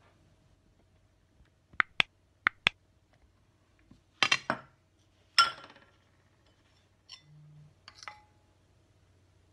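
Glass and china dishes clinking against each other and the table as they are moved: four sharp clinks about two seconds in, then two louder clatters with a short ring around four and five seconds. Lighter taps of a metal utensil on a ceramic bowl come near the end.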